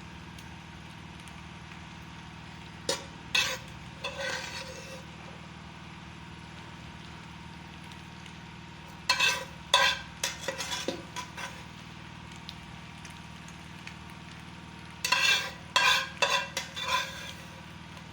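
Fried rice being stirred in a pot: a utensil scrapes and knocks against the pot in three short bouts of strokes, as fried vegetables are mixed into the rice. A steady low hum runs underneath.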